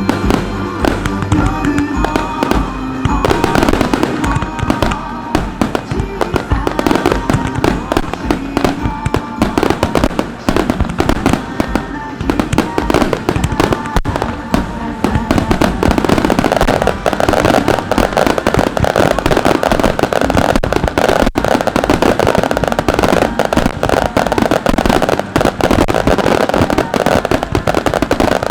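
Fireworks finale: a dense, unbroken barrage of aerial shell bursts and crackle, growing denser and louder from about halfway through, with music playing underneath.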